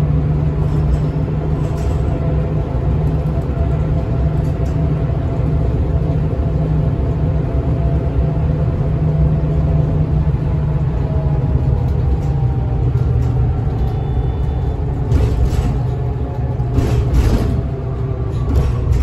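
Mercedes-Benz Citaro O 530 facelift city bus heard from inside while driving: a steady low engine and road rumble. A few brief louder noises come near the end.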